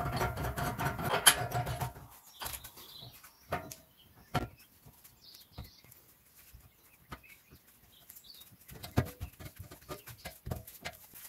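Metal tool parts handled on a workbench: a couple of seconds of rattling and scraping, then scattered clinks and taps, more of them near the end, as the steel cups and threaded rod of a bush press kit are fitted onto a rear axle arm by hand.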